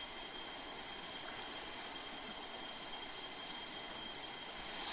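Steady chirring of insects over the even rush of a shallow river, with a brief louder burst of noise near the end.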